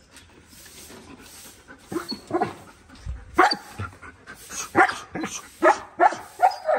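German Shepherd dogs barking repeatedly, starting about two seconds in, with a bark or two every second.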